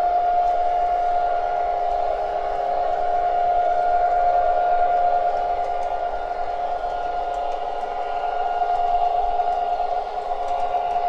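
O gauge model diesel locomotive sounding its electronic horn, a steady held chord, as it runs on the track, with faint clicks from the wheels.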